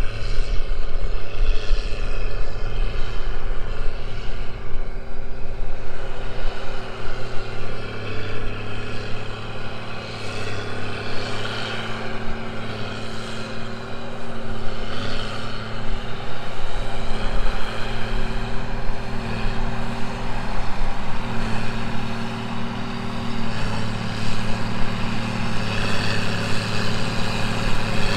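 Case IH 2294 tractor's six-cylinder diesel engine running under load while it pulls a baler uphill, a steady drone heard from across the field with its pitch wavering slightly.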